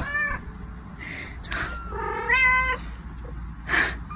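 Cat mewing: a few short, high-pitched mews, the longest about two seconds in.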